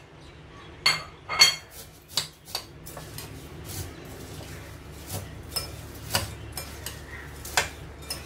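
A metal spoon clinking and scraping against a glass mixing bowl and a plate as shredded cabbage and fried noodles are tossed together. There are two sharp clinks about a second in, then lighter scattered taps.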